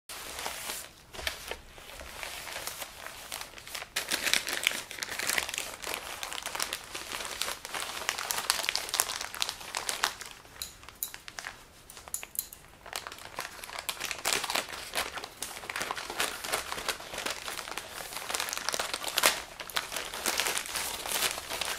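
Orange plastic poly mailer bag crinkling and rustling as hands pull at it and scissors cut it open, with many sharp little crackles.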